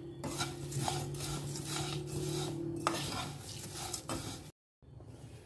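Metal spoon stirring dry, crisp fried flattened rice (chira) in a stainless steel kadai, with rustling and scraping against the pan. A low steady hum sits underneath. It stops about four and a half seconds in.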